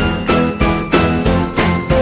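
Background music track with a bright jingling, bell-like percussion and a steady beat.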